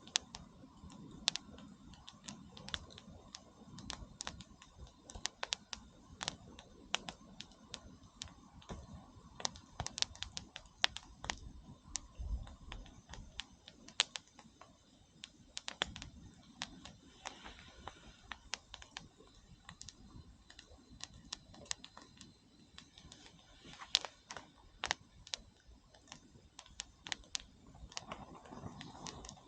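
Wood campfire crackling, with irregular sharp pops over a faint low hiss.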